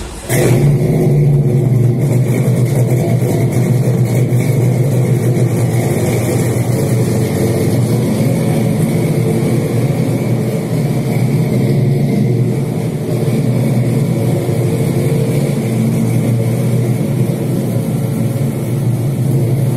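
1998 Jeep Grand Cherokee 5.9 Limited's 5.9-litre Magnum V8 running through a Flowmaster 40 Series Delta Flow muffler, a loud, deep, steady exhaust note. It comes in suddenly near the start and then holds at a steady level, in a concrete parking garage.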